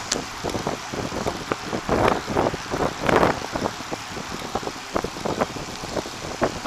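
A bicycle rolling along a paved path, heard through a camera mounted on the bike: steady road and wind noise with irregular rattles and knocks from the bike, swelling louder twice near the middle.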